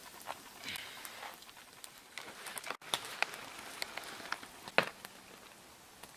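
Gloved hands scraping soil from a rusted field telephone and turning it over: scattered small crackles and clicks of crumbling dirt and grit, with one sharper click about three-quarters through.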